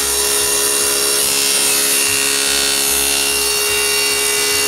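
Power saw with a cheap blade cutting the end of a plywood jig flush, through its screwed-in T-tracks. A loud, steady cutting noise with a constant whine runs throughout.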